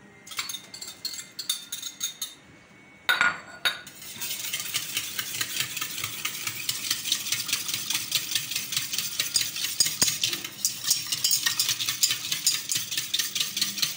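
A wire whisk beating yogurt in a stainless steel bowl, its wires ticking quickly and steadily against the metal from about four seconds in. Before that, a few knocks and scrapes of a spoon on the bowl as the yogurt goes in.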